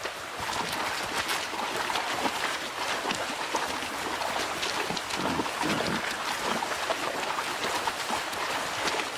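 Shallow river water splashing and rushing as a group of wild boar, adults and young, wade across a stony riverbed. The rush is continuous, dotted with many small splashes.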